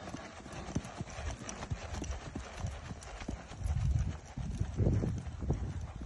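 Hoofbeats of a ridden Andalusian stallion on sand arena footing, a continuous run of muffled thuds, with a few louder low thumps about four and five seconds in.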